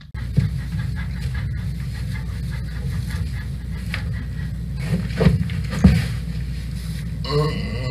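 Donkey sighing: heavy breathy exhalations, the loudest about five and six seconds in, over a steady low rumble.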